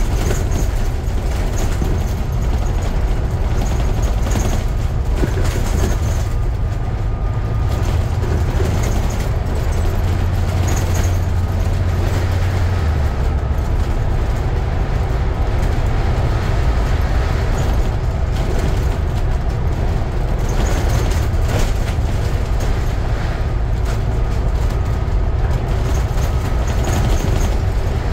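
Scania N250UD double-decker bus running: a steady diesel engine drone and vehicle noise. A stronger low engine note drops away about 13 seconds in.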